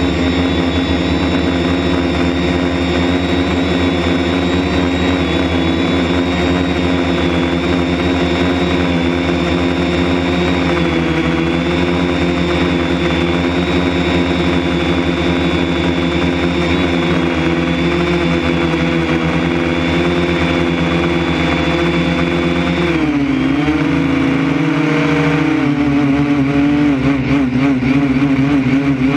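Drone's electric motors and propellers whining steadily in flight, heard through the onboard camera. The pitch dips briefly about 23 seconds in and wavers up and down after that.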